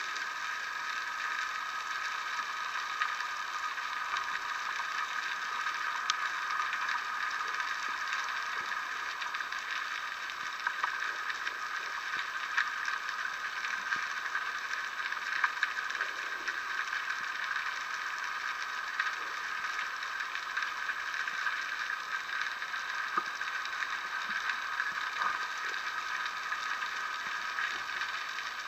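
Underwater ambience heard through a waterproof camera housing: a steady hiss with scattered faint clicks and crackles.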